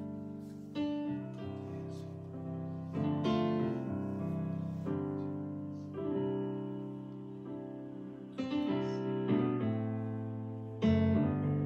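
Slow piano music: sustained chords that ring and fade, a new chord struck every two to three seconds.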